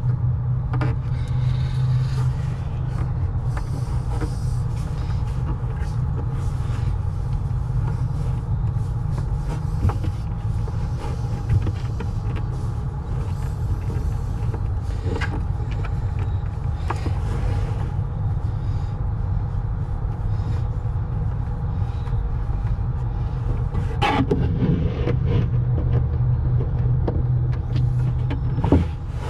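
Engine idling steadily with a low, even hum, with a few sharp clicks and knocks over it.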